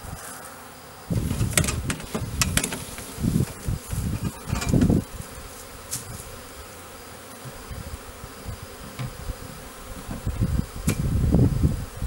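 Swarm of honey bees buzzing as they are shaken from a bucket into a small hive box. Bursts of low rumble come twice, in the first half and near the end, along with a few sharp knocks.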